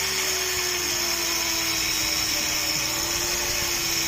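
Power tool running steadily, grinding down a foam shoe sole; its motor pitch slowly sags a little under the load.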